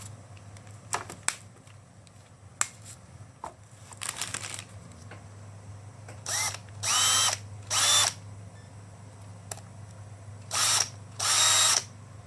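Makita electric hand drill run in five short trigger bursts, each motor spin-up rising quickly in pitch. A few clicks and handling knocks come before the first run.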